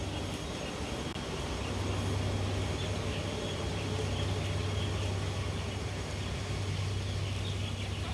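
Moored catamaran ferry idling at the pier: a steady low engine hum under a constant wash of noise.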